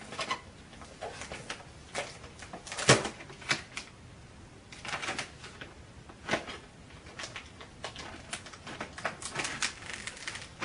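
Clear plastic protective film crinkling and crackling in irregular bursts as it is peeled off an iMac's glass screen, with one sharp snap about three seconds in.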